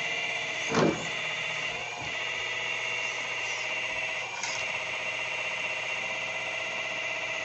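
4200 XL RC excavator running: a steady, high, multi-tone whine from its drive, which dips briefly about two seconds in as the load changes. There is a short, louder noise about a second in.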